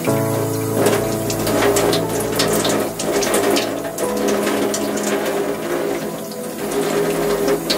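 Water pouring from a metal spout onto a potted plant, splashing on its needles and the soil, over background music with sustained chords.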